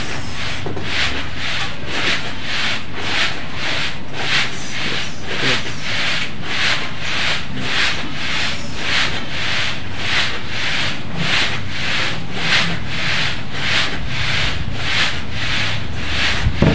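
Rhythmic back-and-forth rasping strokes of a hand tool working wood, about two strokes a second, steady in pace and loudness.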